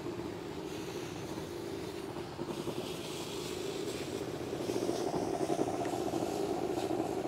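Motorized pesticide sprayer running steadily while spraying, with a hiss of spray coming in about two and a half seconds in. The motor gets louder and more pulsing in the second half.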